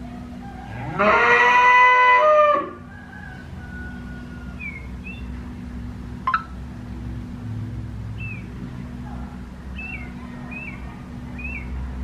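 A cow moos once, loud and rising at the start, about a second in and lasting about a second and a half. After it come faint, short, high bird chirps every second or so, with a single sharp click about six seconds in.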